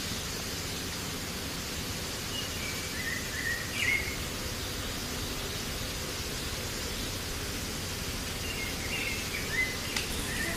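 Steady outdoor background noise with a few short bird chirps, one group about three seconds in and another near the end, and a brief click just before the end.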